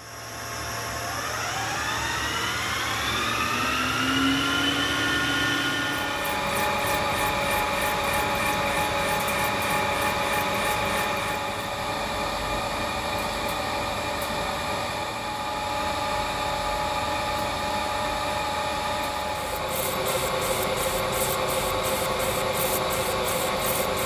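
Metal lathe starting up: the motor and gearbox whine rises in pitch over the first few seconds as the spindle comes up to speed, then runs steadily. A fast, even ticking joins in about six seconds in and grows stronger near the end.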